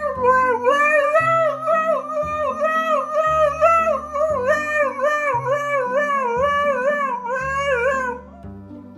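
Background music with a steady bass line. Over it, one long pitched call wavers up and down in an even rhythm and stops about a second before the end.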